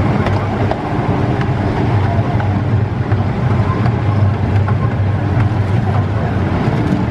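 Casey Jr. Circus Train ride train running along its track: a steady low hum and rumble, with a few light clicks.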